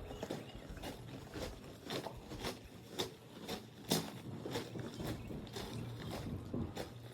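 Footsteps of a person walking at an even pace, about two steps a second, with one heavier step about four seconds in.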